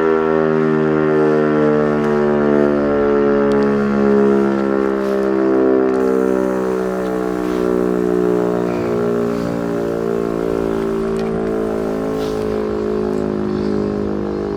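Siemens E57 electric rotary siren winding down: a loud, many-toned howl that slides slowly lower in pitch and fades a little.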